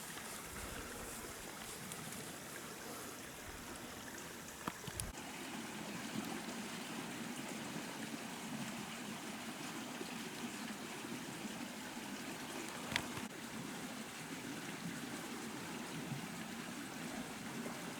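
A small river running full, a steady rush of flowing water, with a couple of faint clicks.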